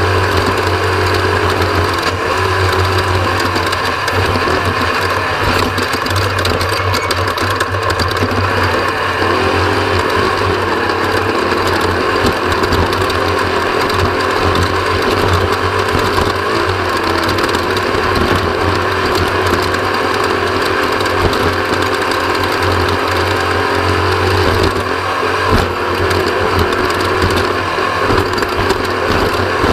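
Off-road race vehicle running flat out, heard from an onboard camera: a steady engine drone under continuous mechanical rattling and clatter.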